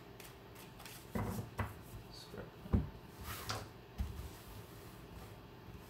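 Tarot cards being handled and shuffled by hand: a few soft slides and taps of the deck, with one sharper knock a little before the middle and a brief swish of cards sliding just after it.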